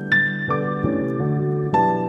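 Gentle background music: keyboard notes struck a few times over held chords.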